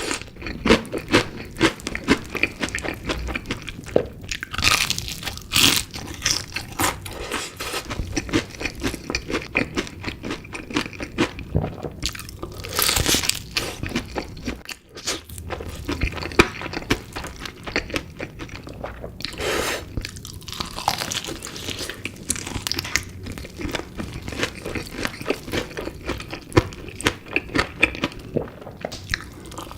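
Close-miked eating of chicken pieces: repeated bites and chewing with dense, crisp crunches, and a few longer, louder crunching bursts along the way.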